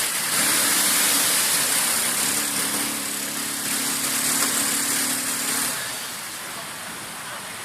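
ATV engine running at a steady throttle with a strong hiss over it, louder for about the first six seconds and then easing off.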